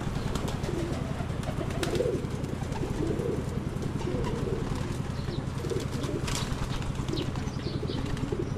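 Racing pigeons cooing in a loft, many overlapping low coos throughout, over a steady low hum. A few brief clicks stand out, one about two seconds in and one past the six-second mark.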